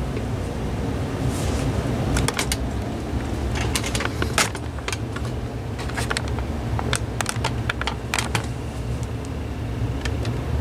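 Scattered short plastic clicks and taps, about a dozen, irregularly spaced, from handling the phone equipment and the camera and reaching for the answering machine's buttons, over a steady low hum.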